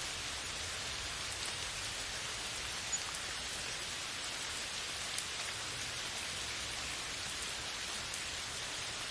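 Steady rain falling on forest foliage, an even hiss with a few single drops ticking out sharper now and then.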